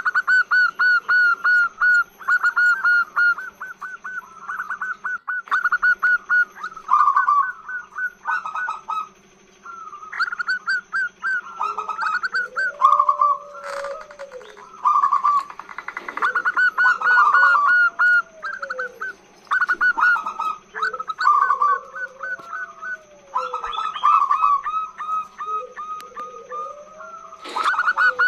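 Female zebra dove (perkutut) in song: fast runs of repeated chirping notes broken by short pauses, with slower arching coos every few seconds in the second half. It is the long call that draws males, used as a lure.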